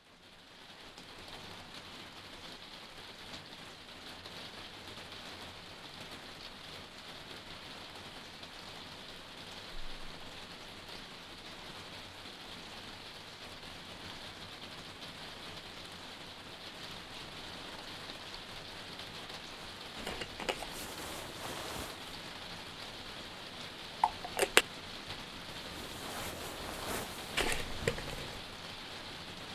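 Steady rain, an even hiss that fades in at the start, with a few sharp clicks and knocks in the last ten seconds.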